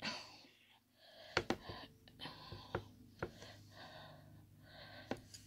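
Quiet breathing with a handful of small, sharp clicks from handling objects close to the microphone.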